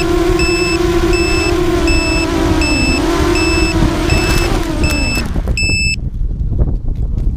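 ZMR250 FPV quadcopter's motors whining steadily at one pitch, then dipping and spinning down to a stop about five seconds in as it lands. A high electronic beep repeats about every 0.7 seconds over the motors and ends in a quick run of beeps as they stop.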